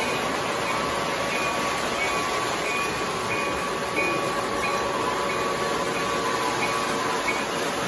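O-gauge model passenger train running along the track: a steady rolling rumble with a faint, regular high tick about every two-thirds of a second.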